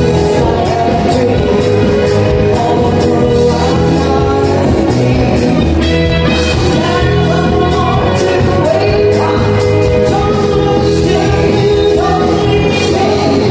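Live band playing a song with a lead vocalist singing over a steady drum beat.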